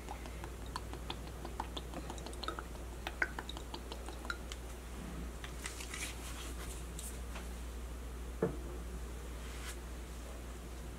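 Low, steady hum of room tone with scattered light clicks and ticks from squeezing a hot sauce bottle over a glass bowl and setting it down. One sharper click comes about eight and a half seconds in.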